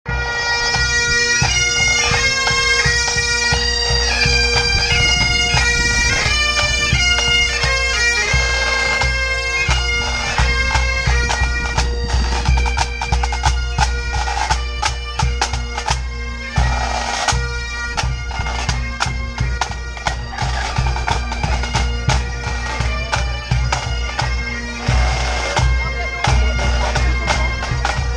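Pipe band playing on the march: Highland bagpipes sound a melody over their steady drones, with the band's drums beating beneath, the drumming growing busier after the first several seconds.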